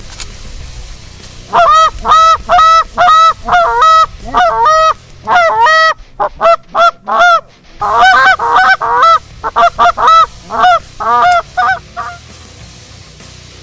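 Hand-blown goose calls honking and clucking in fast runs, very loud and close, calling to Canada geese to bring them in. A short lull of sparser notes about six seconds in, then the runs resume densely before stopping near the end.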